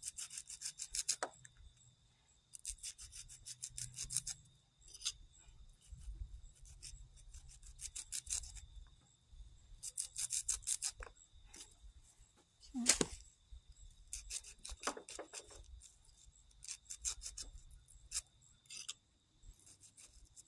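A kitchen knife scraping kernels off an ear of fresh sweet corn: runs of quick rasping strokes, a second or two at a time, with short pauses between. About halfway through there is one louder knock.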